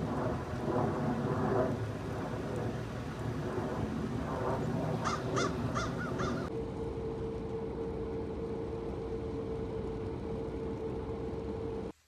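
American crows cawing, with a quick run of about five caws midway, over a steady rush of wind on the microphone. In the second half the calls stop and a steady hum runs under the wind until the sound cuts off abruptly near the end.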